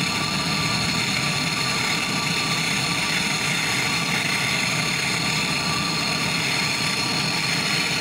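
Gas brazing torch burning with a steady hiss as its flame heats a fluxed copper refrigerant pipe joint on a refrigerator compressor.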